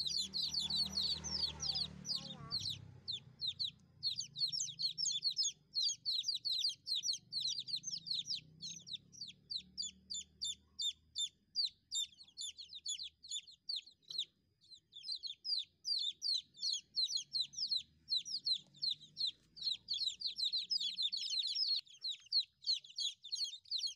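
Several young chicks peeping nonstop: rapid, high-pitched cheeps overlapping one another, with a brief lull about halfway through.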